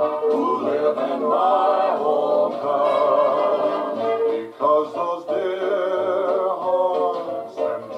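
Music with singing voices played back from a cassette on a Uher CR 210 stereo portable cassette recorder, testing the machine after new belts, capacitors and refurbished pinch rollers. The sound is thin, with almost no deep bass, and the sung notes waver with vibrato.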